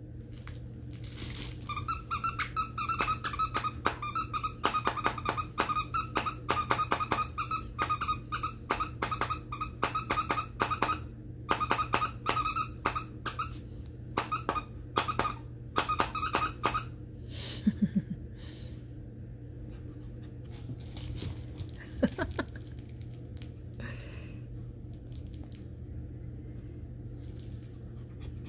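Squeaker inside a plush dog toy squeaking over and over, several short squeaks a second, as a small Morkie puppy bites down on it. The squeaking stops a little past halfway through, leaving only a few faint sounds over a steady low hum.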